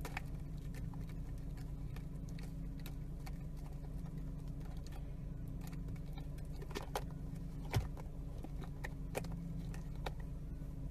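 Steady low hum of a car's cabin, with scattered light clicks and squeaks as a corgi puppy chews and tugs a plastic drinking straw in a cup's lid; one louder knock comes about eight seconds in.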